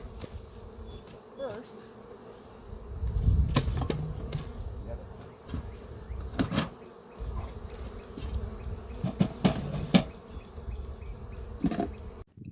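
Honey bees buzzing steadily around the hive entrance as a newly installed package walks in, with a few sharp ticks and a low rumble that comes and goes.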